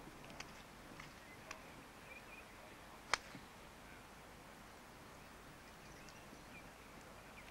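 A single sharp crack of a golf club striking the ball during a full swing, about three seconds in, over a faint outdoor background.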